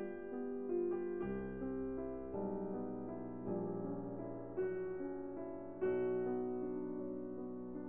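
Background music: slow, sustained piano-like keyboard chords, a new chord about once a second.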